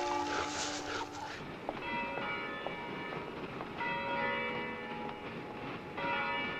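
Several church bells ringing at different pitches, their long tones overlapping, over a steady background noise.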